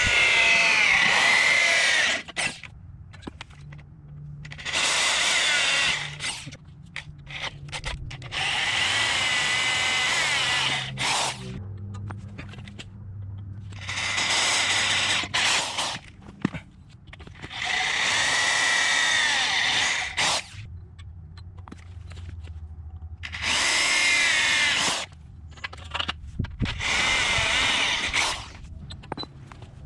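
Corded electric drill with a twist bit boring holes through aluminum tarp-arm bars, in about seven bursts of one to three seconds with short pauses between, each a whine that shifts in pitch as the bit cuts.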